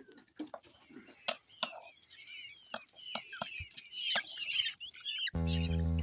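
Peachicks cheeping in high, wavering calls, with scattered sharp taps. About five seconds in, loud music starts abruptly and takes over.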